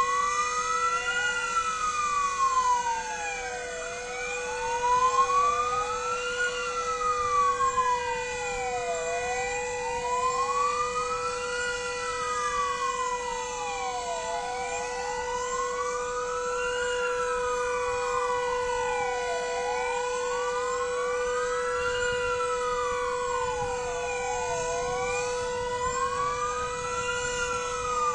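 Several fire engine sirens wailing together, each rising and falling about every five seconds, over a steady unbroken siren tone: the 'W' hour remembrance signal.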